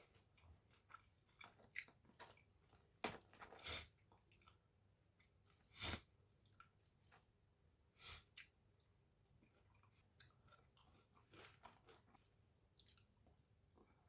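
A person chewing and biting food, with soft crunches and wet mouth clicks coming at irregular moments; the loudest bites come a few seconds in and around the middle.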